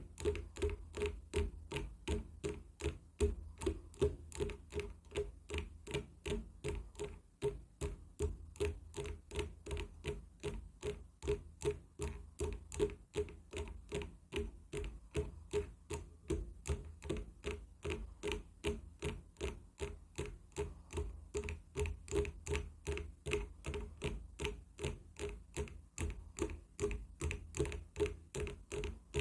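Wood being tapped in a steady, quick rhythm of about three to four knocks a second, each a short hollow knock.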